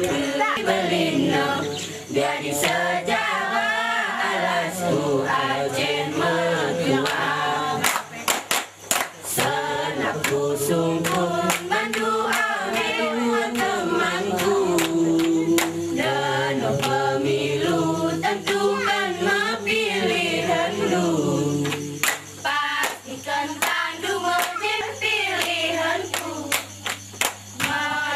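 A group of young women singing the mesekat chant together, an Alas seated dance song, with sharp hand claps in rhythm. The claps are thickest about a third of the way in and near the end.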